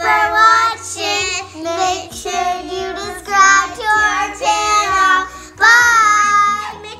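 Young girls singing together in long, wavering held notes, phrase after phrase, with a loud last phrase near the end.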